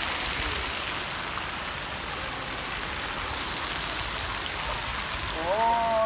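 Fountain water jets spraying and splashing into the basin, a steady hiss like heavy rain. Near the end a voice sounds briefly.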